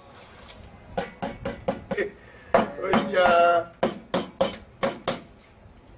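Two runs of sharp knocks, about four a second, with a short vocal cry between them.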